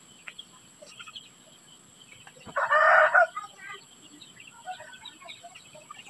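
A domestic chicken calling once, loudly and for under a second, about halfway through, amid faint scattered bird chirps.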